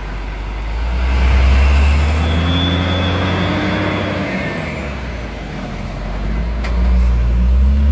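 Hino FG235 truck pulling away, its diesel engine revving up under load. The revs drop back about five seconds in and rise again near the end.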